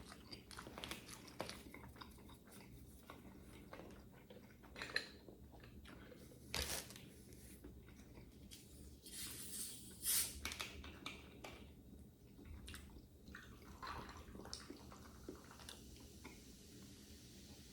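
A person chewing and biting food close to the microphone, with small wet mouth clicks and a few louder crunchy bites partway through.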